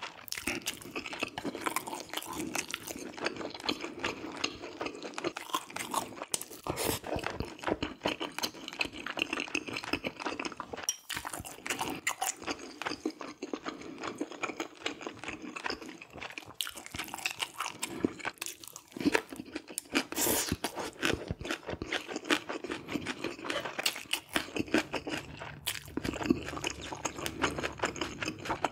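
Close-miked chewing of a person eating braised red sea bream with rice, full of small wet mouth clicks and bites.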